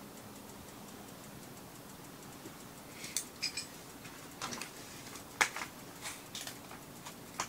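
Faint steady background with light ticking, then from about three seconds in a run of sharp clicks and clatters as metal chopsticks and a plastic meat tray are handled over the hot pot.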